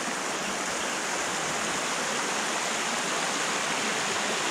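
Water of a small mountain creek running, a steady, even rush.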